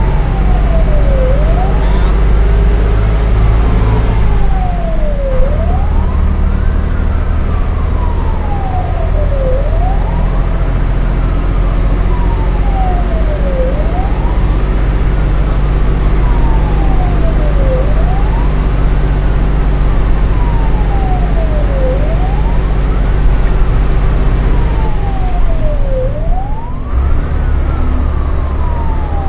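Fire engine's wailing siren cycling slowly, each sweep rising quickly and then falling over about three seconds, repeating roughly every four seconds. Beneath it the truck's engine runs steadily, heard from inside the cab.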